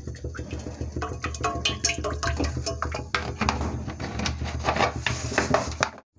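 Cooking oil poured from a plastic bottle into a kadhai, with clicks and knocks from the bottle and pan over a steady low hum; it stops abruptly near the end.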